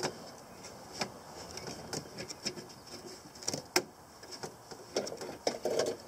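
Scattered small clicks and knocks of hands working the beige plastic window-carrier tabs loose inside a truck door. The sharpest click comes about three and a half seconds in, with a short cluster of knocks near the end.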